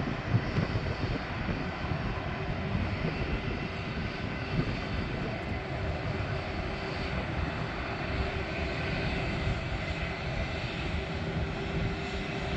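Twin jet engines of a departing Boeing 767-200 freighter, a steady distant rumble as it climbs away.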